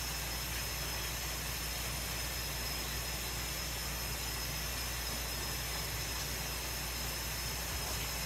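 Steady hiss with a low hum underneath, unchanging throughout, with no distinct knocks or other events.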